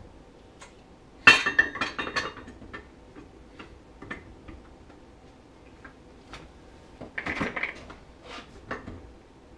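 Steel tools clanking and clinking against a snowmobile primary drive clutch: a loud ringing metal clank about a second in, scattered light clicks, then a second cluster of clanks about seven seconds in.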